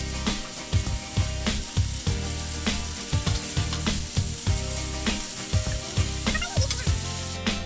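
Thin-sliced meat sizzling on an electric grill pan, a steady frying hiss, under background music with a steady beat.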